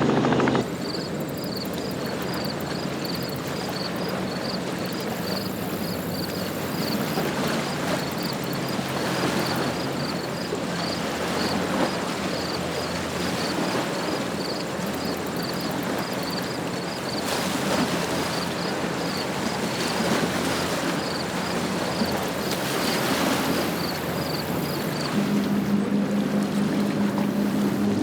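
Motorboat running on open water, with the rush of water and wind noise. A faint high ticking repeats about twice a second through most of it, and a steady low hum comes in near the end.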